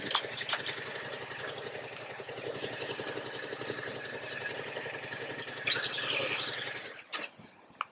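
2018 Yamaha MT-07's parallel-twin engine idling with an even pulse, then cutting out near the end, followed by a couple of clicks. Shortly before it stops, a brief high whistle rises and then falls in pitch.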